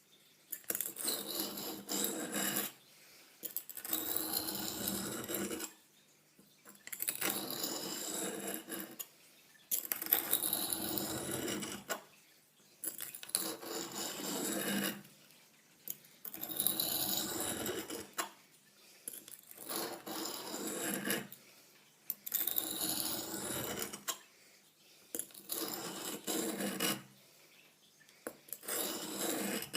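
Steel blade of a Buck hunting knife drawn with pressure along the coarse side of a lubricated oilstone: about ten slow grinding strokes, each some two seconds long with a short pause between. The coarse side is taking metal off the blade to set the edge.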